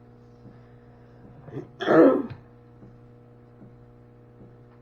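A woman clears her throat once, a short harsh burst about two seconds in, over a steady low hum.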